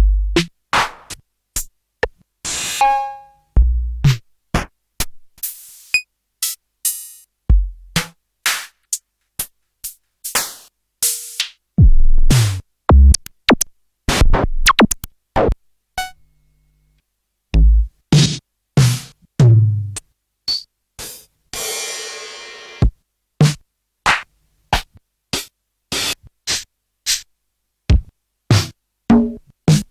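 Electronic drum samples from a Novation Circuit Tracks sound pack played one after another: deep kicks, snappy hits and crisp hi-hats with short gaps between them, and a longer noisy swell about two thirds of the way through.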